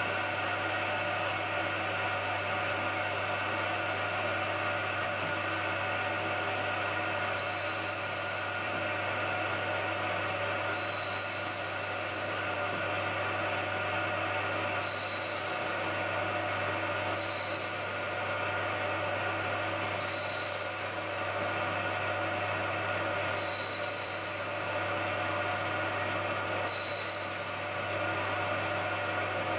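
Bridgeport milling machine spindle running steadily with a 3/8 in end mill plunge-cutting a cast iron piston. From about seven seconds in, a short high, rising squeal comes back about every three seconds as the cutter is fed down at regular intervals.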